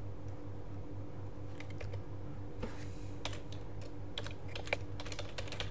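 Computer keyboard typing: a few scattered keystrokes about a second and a half in, then a quicker run of key clicks, over a steady low hum.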